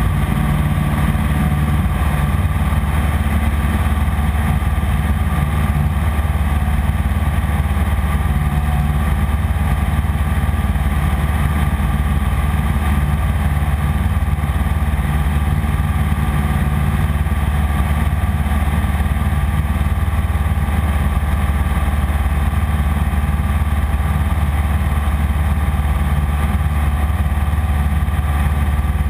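Piper PA-15 Vagabond's engine and propeller heard from inside the cabin, droning steadily at cruise power in flight with an even, deep hum.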